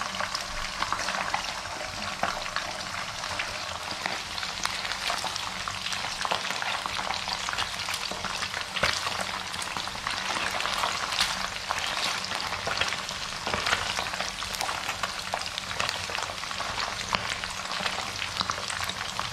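Pre-boiled chicken pieces frying in hot oil in a non-stick wok: a steady, dense sizzle full of small crackling pops, while a silicone spatula turns the pieces.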